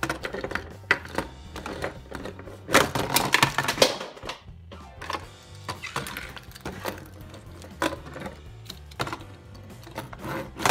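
Small die-cast toy monster trucks clattering and knocking against hard plastic ramps, a plastic container and the tabletop as they crash, a dense run of clicks loudest about three seconds in. Background music plays underneath.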